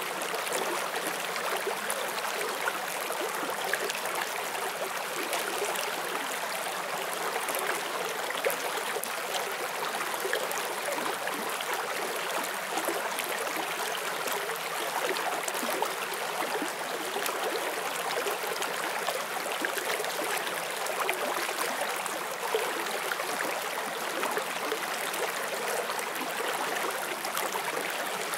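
A shallow forest stream flowing and splashing over stones: a steady, bright rushing of water with small splashes throughout.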